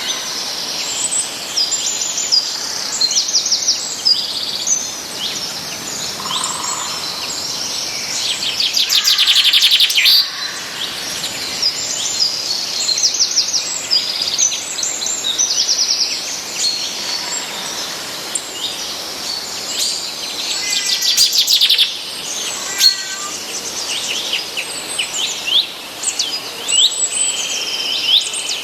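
Several songbirds chirping and whistling over a steady faint background hiss. A dense, buzzy trill comes about a third of the way in and another shortly past two-thirds.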